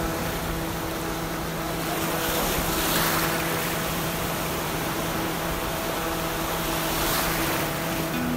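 Sea waves washing in slow swells over a steady low drone.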